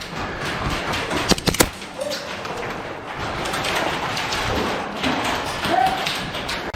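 Airsoft gunfire in an indoor close-quarters arena: a quick run of two or three sharp shots about a second and a half in, over steady background noise with faint distant calls.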